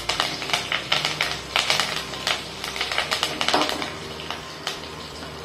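Curry leaves and green chillies spluttering and crackling in hot oil in a nonstick pan, stirred with a wooden spatula. The crackles are densest for the first few seconds, then thin out.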